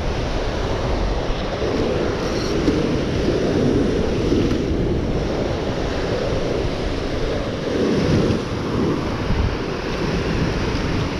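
Ocean surf breaking and washing against a lava-rock shoreline: a continuous rushing noise that swells a few times, with wind buffeting the microphone.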